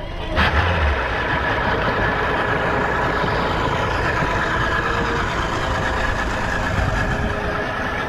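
Mercury 150 Pro XS outboard motor starting, catching suddenly about half a second in, then idling steadily while its exhaust churns and bubbles the water around the lower unit.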